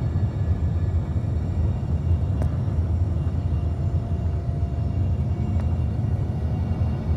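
Steady low rumble of an airliner in flight, engine and airflow noise as heard inside the cabin, with a faint thin whine through the middle and two small clicks.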